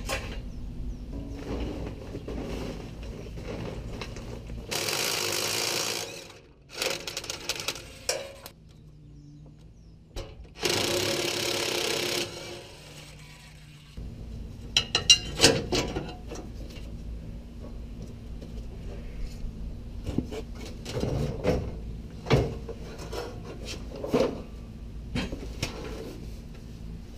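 A power tool running in two bursts of about a second and a half each, spinning off the bumper bracket bolts on the truck's frame. Later come a series of sharp metal clanks and knocks as the loosened bumper is worked free.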